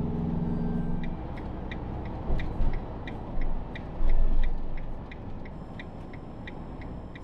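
Cab noise of a Hobby motorhome driving at motorway speed: steady engine and road rumble. The engine hum drops away about a second in, a light regular ticking comes about three times a second, and a few heavy low thumps sound in the middle.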